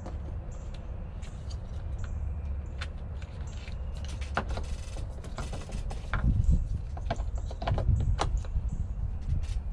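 Scattered small clicks, rattles and rustles of hands handling wires and a small plastic fitting at a hole in a boat's deck, over a low rumble.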